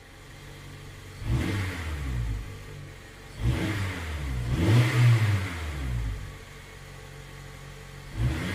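Car engine idling and being revved in short throttle blips, four times, the pitch rising and falling back to idle each time; the loudest rev comes about halfway through.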